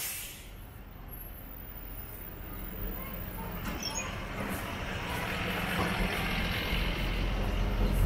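Street traffic: a low, steady vehicle engine hum with a noisy wash over it, growing gradually louder through the seconds.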